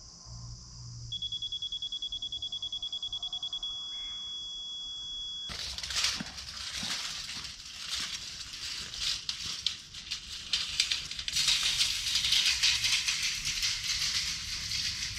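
Laser level receiver beeping rapidly at a high pitch, then holding one steady tone for about two seconds, the signal that it is reading on grade; crickets chirring behind it. About five seconds in, the crickets drop away and a loud scratchy crackling and crunching takes over, loudest near the end.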